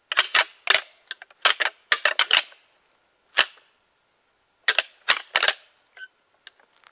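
Rattling antlers clashed together in short bursts of sharp clacks, imitating two whitetail bucks fighting to call deer in. A few softer ticks come near the end.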